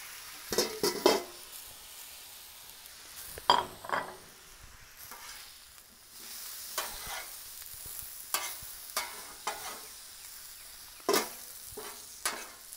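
Potato hash sizzling on a Blackstone flat-top griddle while two metal spatulas scrape and clack against the griddle plate at irregular moments as the food is turned and tossed.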